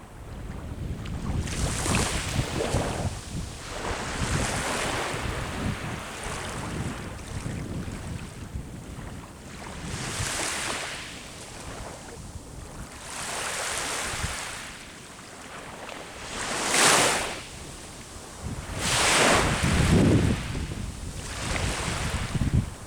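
Sea waves breaking and washing up the shore, one surge every few seconds, the loudest two near the end, with wind buffeting the microphone throughout.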